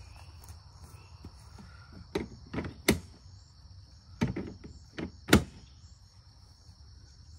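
A run of sharp clacks and knocks, about six in three and a half seconds, from hard parts being handled and set in place while a cordless lawn mower is put together.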